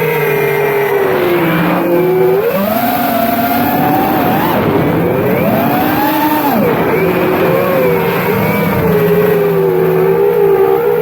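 FPV drones' electric motors whining, the pitch sliding up and down with throttle as they fly. Several whines at different pitches move independently.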